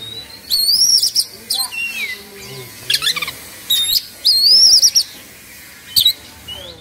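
Oriental magpie-robin (kacer) singing loudly in short, separate phrases of high whistles, sharp notes and falling slurs, with a longer warbled phrase in the middle. This is the excited 'emosi/kongslet' song style that kacer keepers prize.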